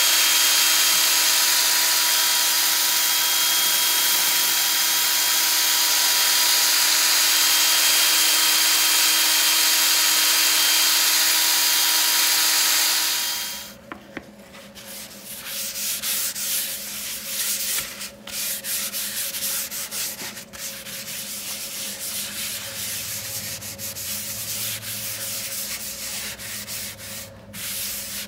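Sandpaper sanding a walnut turning. For about the first 13 seconds it is a loud, steady sanding noise with a steady hum in it. This cuts off sharply and gives way to quieter, uneven rubbing against the wood.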